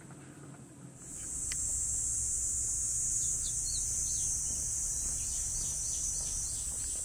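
Insects shrilling in a steady high-pitched drone that starts about a second in, with a few short bird chirps over it in the middle.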